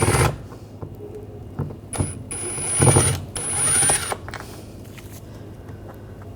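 Phillips screwdriver backing screws out of a car's plastic door trim, in a few short spells of turning with a thin high squeak, about two to four seconds in.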